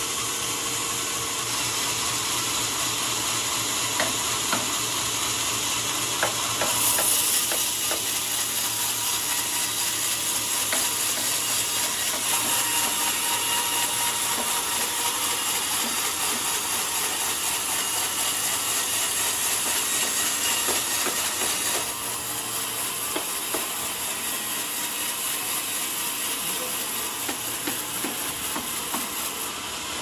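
Band sawmill blade cutting lengthwise through a huge trembesi (rain tree) log: a steady hissing rasp with scattered clicks and knocks. It is loudest through the middle and drops off about two-thirds of the way through.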